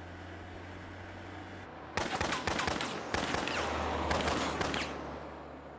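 A car engine hums steadily. About two seconds in, a long burst of rapid automatic gunfire breaks out, dense cracks running for about three seconds over the engine sound.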